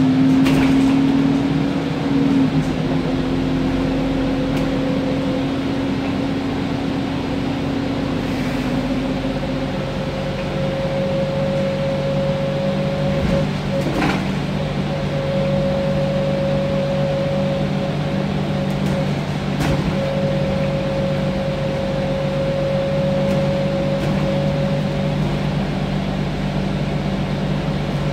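Alexander Dennis Enviro 400 double-decker bus running, heard from inside the upper deck: a steady low drone with a higher whine over it, and a second tone that fades out partway through. Two brief knocks from the bodywork, one around the middle and one a few seconds later.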